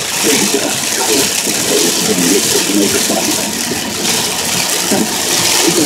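Heavy rain beating on a car's windshield and roof, mixed with tyre spray hissing on a flooded highway, heard from inside the moving car: a loud, steady rush.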